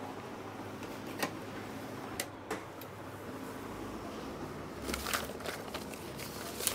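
A few sharp clicks and light knocks from an HP LaserJet Pro MFP M26nw laser printer being switched on and handled, over a faint steady hum.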